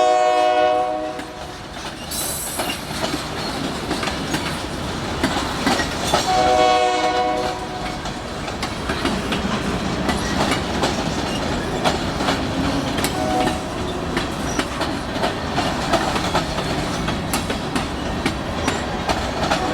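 Union Pacific local freight train rolling past, its wheels clicking steadily over the rail joints. The locomotive's air horn sounds at the start, again about six seconds in, briefly around thirteen seconds, and once more at the very end.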